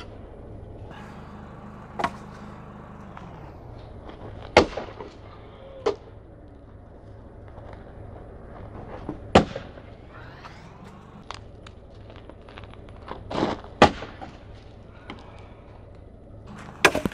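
Axe chopping dead branches into firewood: about eight sharp, single strikes on the wood, a few seconds apart and irregular.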